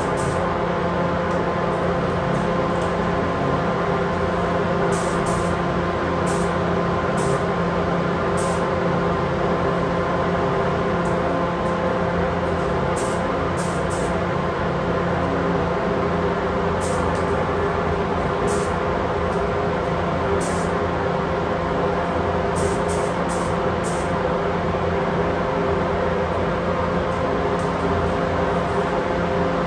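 Paint booth ventilation fan running: a steady mechanical drone with a constant hum.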